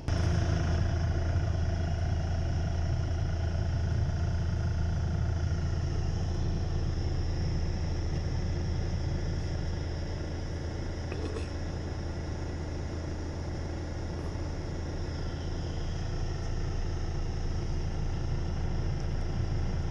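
Diesel engine of a MAN concrete mixer truck running steadily as a low drone, with a brief click about halfway through.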